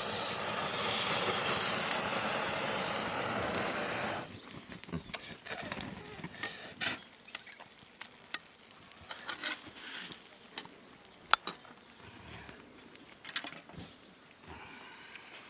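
A steady loud hiss for about four seconds that cuts off abruptly, followed by scattered light taps and clicks.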